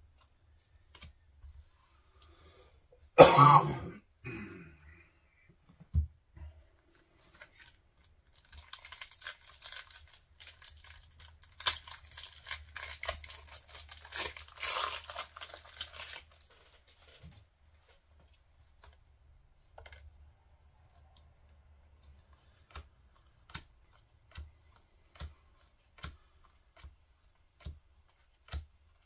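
A sudden loud burst about three seconds in, then a Pokémon booster pack's foil wrapper being torn open and crinkled for several seconds. After that come soft separate clicks about once a second as the cards are handled one by one.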